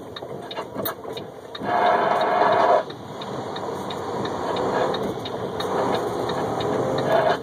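Road and engine noise inside a truck cab driving on a rain-soaked interstate, with light ticks repeating at a steady pace. A louder stretch about two seconds in lasts about a second.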